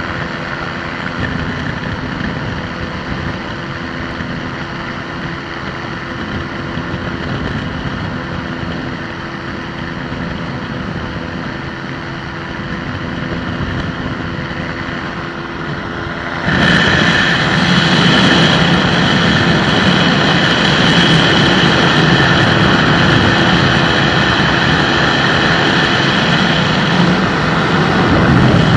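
Microlight aircraft's engine and propeller running steadily in flight. About halfway through the sound suddenly grows louder and brighter and holds there.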